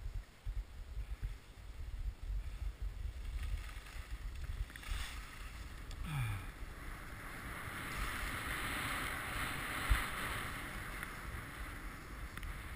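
Skis sliding down a packed snow trail, with wind buffeting the camera's microphone. From about six seconds in the skis' hiss on the snow grows louder and steadier, and there is a single thump near ten seconds.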